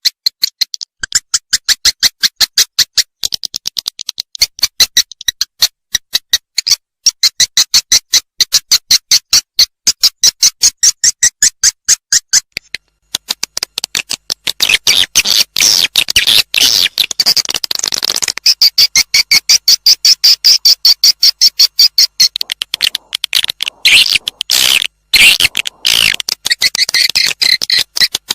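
Swiftlet lure call: a rapid, continuous run of sharp, high twittering chirps, the recorded or synthesized edible-nest swiftlet calls that swiftlet farmers play to attract birds into a swiftlet house. It breaks off briefly near the middle, then resumes more densely.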